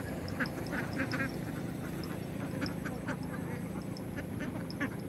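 A flock of domestic ducks quacking, many short calls overlapping irregularly, over a steady low hum.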